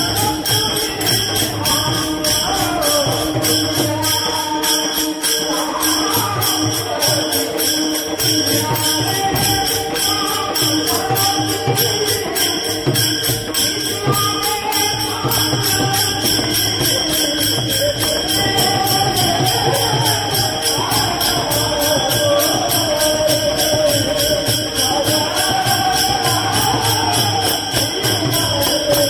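Warkari bhajan: many pairs of brass taal cymbals clashing together in a fast, even rhythm, with a mridang barrel drum beating underneath and a lead singer chanting a devotional melody into a microphone.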